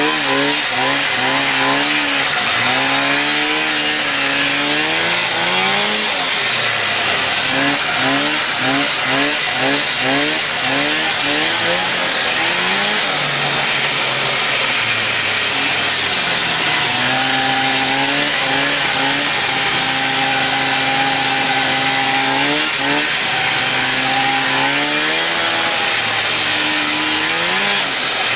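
1996 Polaris Indy snowmobile's two-stroke engine being ridden, its pitch rising and falling repeatedly with the throttle. Two-thirds of the way through it holds steadier for a few seconds, then rises and falls again, over a constant hiss.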